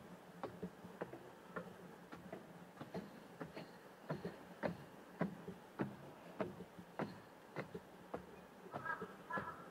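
Footsteps at a steady walking pace, nearly two steps a second, each a short sharp tap on a hard path. A brief cluster of chirps sounds near the end.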